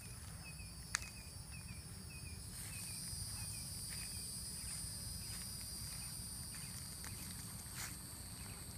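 Outdoor ambience of steady, high-pitched insect buzzing, with a string of small repeated chirps over the first few seconds and one sharp click about a second in, over a low rumble.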